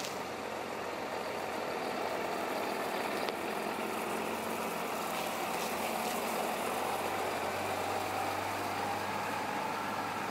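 Heavy vehicle engine running steadily, with a low hum that grows stronger about seven seconds in.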